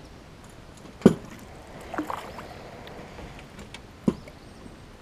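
Sharp knocks and bumps on the hull of a small fishing boat: three of them, about a second in, around two seconds and near four seconds, the first the loudest.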